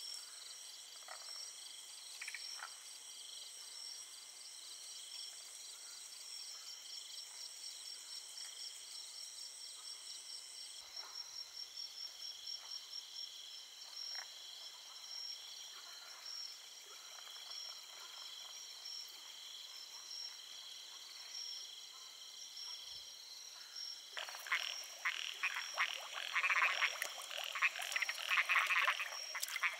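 Steady high insect trilling in the night, then about twenty-four seconds in, frogs start croaking loudly in a dense, rapid chorus.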